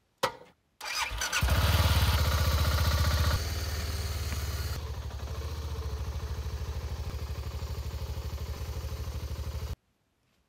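A BMW adventure motorcycle's engine is started after a click, runs loudly with an even pulsing beat for a couple of seconds, then settles lower as the bike is ridden slowly over dirt. The engine sound stops abruptly near the end.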